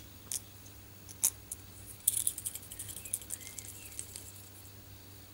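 Small metal screws and washers clicking and rattling as they are picked over and handled by hand, with a scattered run of light clicks about two seconds in, while a small plastic block and spacer plate are fitted together.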